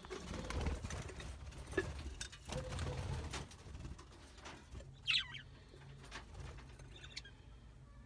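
Low rustling and knocking of a hand-held phone moving inside a wire aviary for the first three seconds or so, then one short, sweeping chirp from a small parrot about five seconds in.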